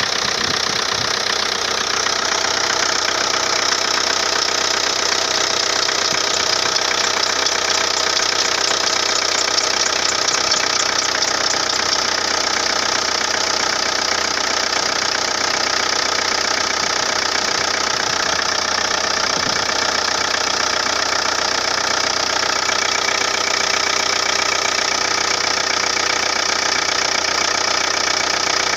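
Car engine running steadily, with its drive belt whistling continuously in a high, hissing squeal over the engine note.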